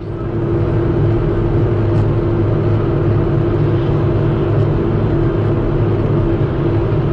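Steady in-car road noise from a dash camera: a car's engine and tyres droning on a wet road, with a constant low hum, coming up within the first second.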